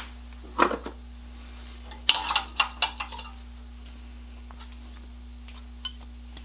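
Metal tools or parts being handled on a workbench: a knock, then a quick run of sharp clinks and clatters about two seconds in, then a few light ticks, over a steady low electrical hum.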